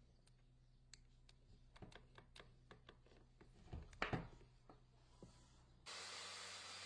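Scattered light clicks and taps, with two louder knocks about four seconds in. Near the end a steady hiss starts abruptly.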